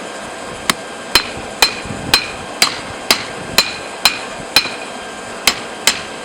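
Hand hammer blows forging a hot railroad spike into a knife blade: about a dozen strikes, roughly two a second with a short pause near the end, each with a brief metallic ring.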